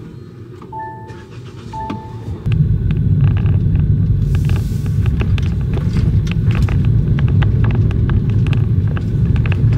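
Two short electronic beeps about a second apart. Then, from about two and a half seconds in, the loud steady low rumble of a Kia Ray camper car driving on a concrete road, heard inside the cabin, with many small ticks and rattles over it.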